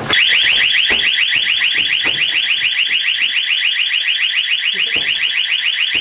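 Door alarm on an emergency fire-exit door going off as the door is pushed open: a loud electronic tone pulsing rapidly, several times a second, in an even repeating warble.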